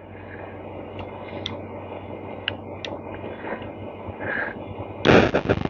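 Faint clicks and taps of small starter parts being handled, then a loud rapid rattling noise starting about five seconds in.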